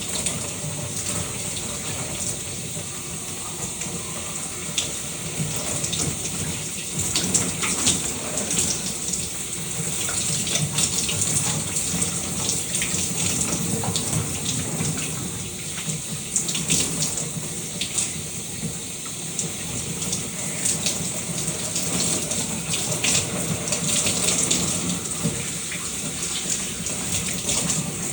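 Shower running: a steady spray of water with many small, irregular splashes.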